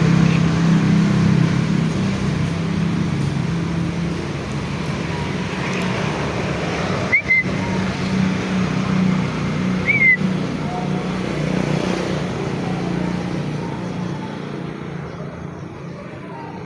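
A motor vehicle engine running steadily, a low hum that fades away over the last few seconds. Two short, high chirps sound about seven and ten seconds in.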